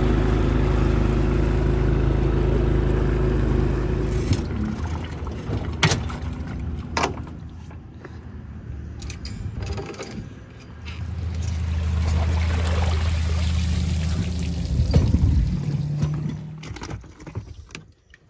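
Mercury outboard motor running at speed with water rushing past the hull; it cuts off about four seconds in. Then come a couple of sharp clicks and, a few seconds later, another steady low motor hum lasting several seconds.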